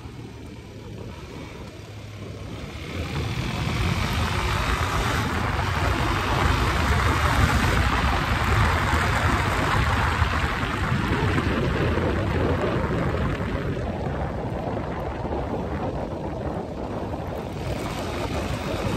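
Motorcycle running at road speed, its engine drone mixed with wind rushing over the microphone. It grows louder about three seconds in and stays steady after that.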